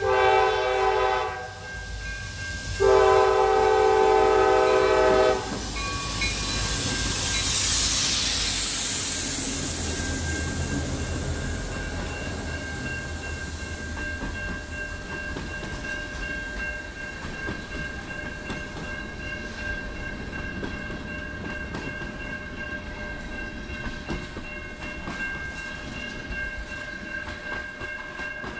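CSX freight train at a grade crossing: the diesel locomotive's air horn sounds a short blast, then a longer one. The locomotives then pass close by, and the freight cars roll past with a steady rumble and the clickety-clack of wheels over rail joints.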